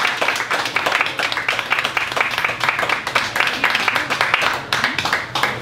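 Audience applauding: many people clapping at once, a dense irregular patter of hand claps that keeps up steadily.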